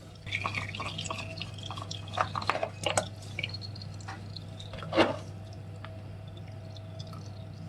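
Engine oil dripping from a Honda VFR 750's V4 engine into a drain pan, in irregular drops with one louder splat about five seconds in.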